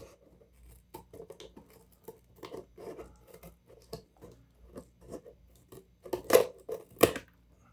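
The small scissors of a Gerber Truss multi-tool are opened and closed repeatedly, making light metal snips and clicks, about two or three a second. There are two louder snaps near the end.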